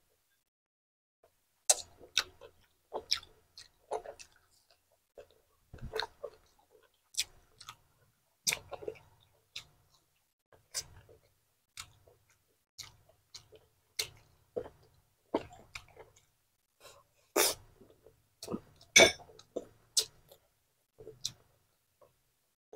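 Close-miked chewing and lip-smacking of a person eating pork meatballs and rice: irregular wet clicks about once or twice a second, two of them louder about three-quarters of the way through.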